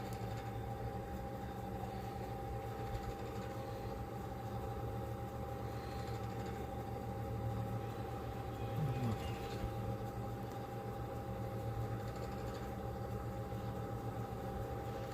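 Steady background hum with a constant mid-pitched tone and a low drone, with no distinct events.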